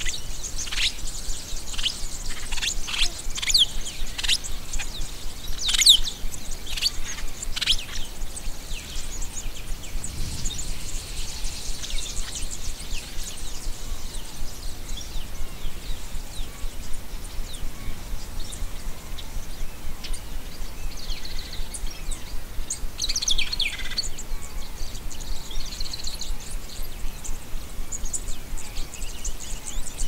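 Wild birds chirping and calling: many quick, sharp high calls in the first several seconds, sparser after, then another busy flurry of calls a little past two-thirds of the way through.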